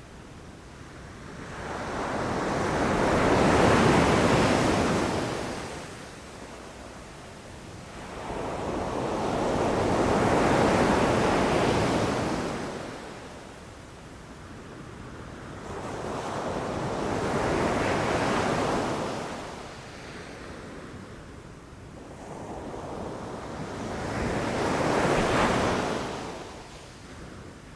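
Ocean waves breaking on a beach: four waves, each swelling up and falling away, about seven seconds apart.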